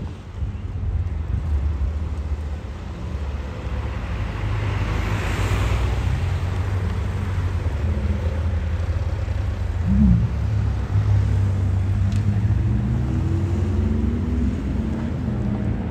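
Sports car engines driving past at low speed, a steady exhaust rumble. About ten seconds in there is a sharp throttle blip, and near the end the engine revs climb as a car accelerates away.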